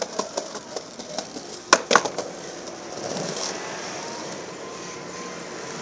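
Skateboard knocking on a granite ledge: several light clacks, then two sharp cracks close together a little under two seconds in, followed by the steady sound of urethane wheels rolling on concrete.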